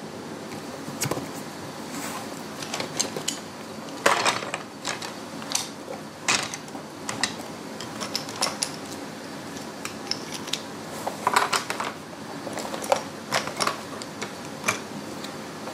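Thin wooden beehive frame bars clattering and knocking together as they are taken out of a cardboard box and sorted into piles on a table. The clicks come irregularly, with denser, louder clusters about four seconds in and again around eleven seconds.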